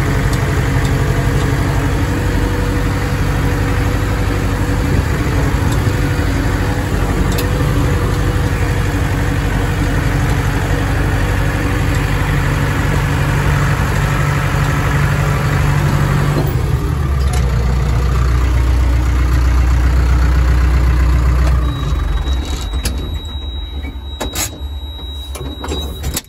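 An engine running steadily; about 17 seconds in its note shifts lower and louder, and about 22 seconds in it falls away, leaving a quieter hum with a few clicks near the end.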